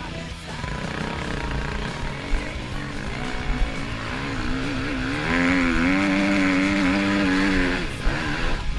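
KTM EXC enduro motorcycle engine revving up and down as it is ridden, loudest for a few seconds in the second half with a wavering pitch.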